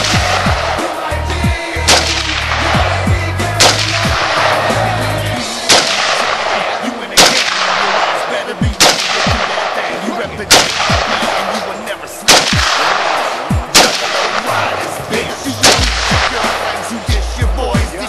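AK-47 rifle firing 7.62×39 mm rounds one at a time: about ten sharp shots, roughly one every one and a half to two seconds.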